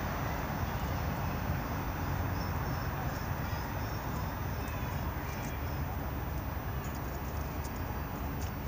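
Norfolk Southern double-stack container freight train rolling away: a steady low rumble that slowly fades, with faint scattered clicks.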